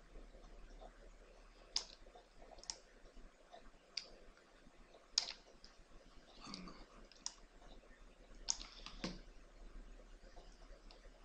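Computer mouse clicking: about eight sharp, separate clicks at irregular intervals, with two close together near the end.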